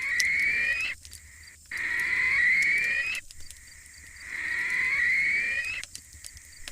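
Bird call sound effect: a long, slowly rising call, heard three times, each about a second and a half long with short pauses between.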